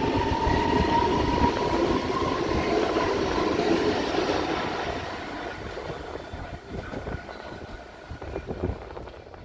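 S-Bahn electric multiple unit (DB class 423) accelerating away: a steady traction-motor whine rising slightly in pitch over the rumble of the wheels, fading out from about halfway through as the train pulls away.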